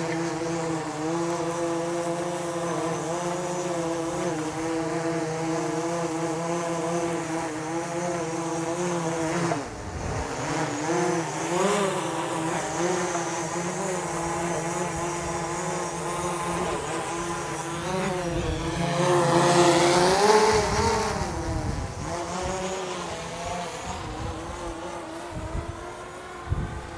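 DJI Mavic Pro quadcopter's propellers whining steadily, the pitch wavering up and down as the motors fight strong gusty wind. A louder rush of wind noise swells around twenty seconds in.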